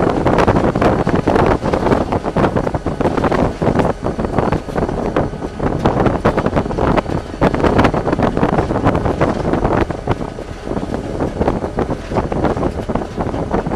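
Inside the cab of an SD40-2 diesel-electric locomotive under way: the 16-cylinder EMD diesel drones low under a steady mix of wheel-and-rail noise and cab rattles. Wind buffets the microphone.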